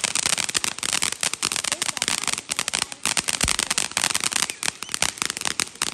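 A string of firecrackers popping in rapid, dense succession, crack after crack with no pause.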